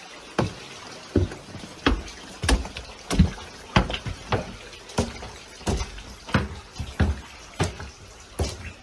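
Footsteps in boots climbing wooden stairs, one knock about every two-thirds of a second.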